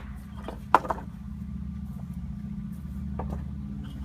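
Wooden pallet boards knocking and clattering as they are worked apart with a pallet-wrecking bar: two sharp knocks just under a second in and a few lighter ones near the end. A steady low hum runs underneath.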